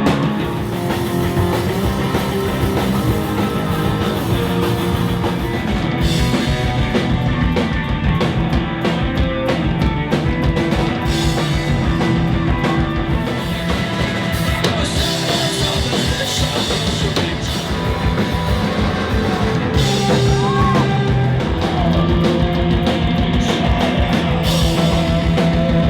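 Loud rock music played by a band with a drum kit and guitars, running without a break.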